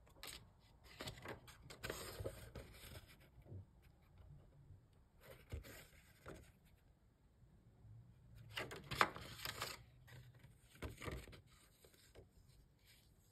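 Paper CD booklet being unfolded and handled, rustling and crinkling faintly in three bouts, the loudest about two-thirds of the way through.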